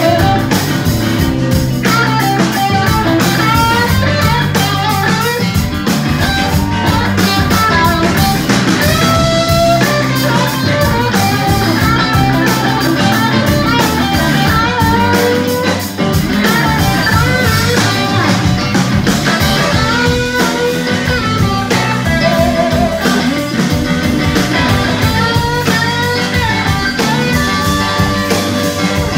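Live rock band playing an instrumental passage: electric guitar lead lines with bent notes over electric bass and drum kit.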